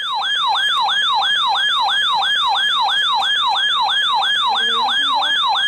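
Electronic alert siren: a rapid falling-pitch sweep repeating about four times a second, sounding the alarm for a severe thunderstorm warning.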